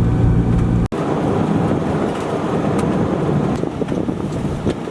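Steady low vehicle running noise, which cuts off abruptly about a second in to a rougher, noisier rumble.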